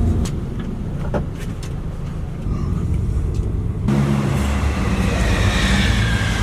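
A vehicle engine running with a steady low drone. The sound changes abruptly about four seconds in, and a high, slowly falling whine joins it.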